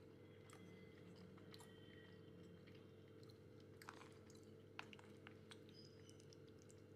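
Faint clicks and soft scrapes of a fork stirring sauced fusilli pasta in a ready-meal tray, a couple of them a little louder past the middle, over a low steady hum.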